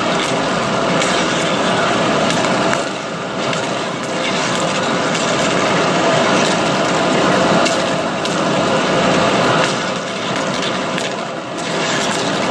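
Trepanning tool with carbide cartridges cutting Inconel 718 under flood coolant: a steady, noisy cutting sound peppered with small clicks, with coolant splashing. It dips briefly about three seconds in and again near the end.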